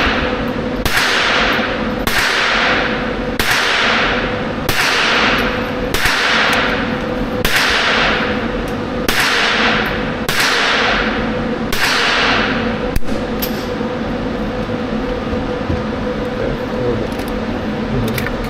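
Single shots from an AR-style rifle on an indoor range, about nine at an even pace a little over a second apart, each with a short echo off the range walls. About two-thirds of the way through there is a single sharp click as the rifle misfires, and the firing stops.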